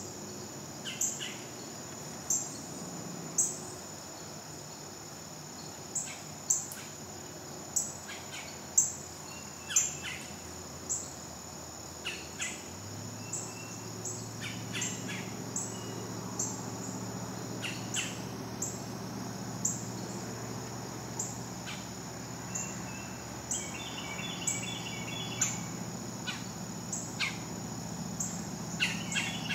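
Woodland ambience in late summer: a steady high drone of insects, with a bird giving short sharp calls about once a second.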